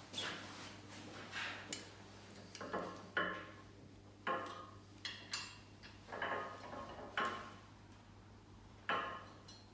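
M10 Allen head bolts being tightened on a steel bender plate: a series of short metallic clinks and scrapes from the hand tool, roughly one a second, some with a brief ring.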